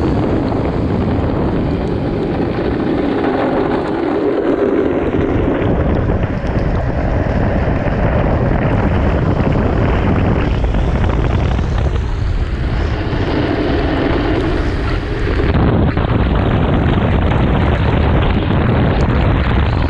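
Wind buffeting the microphone over the rush of a drift trike rolling and sliding downhill on wet asphalt, with spray hissing off the wheels. A coarser drone swells twice, for a few seconds each time.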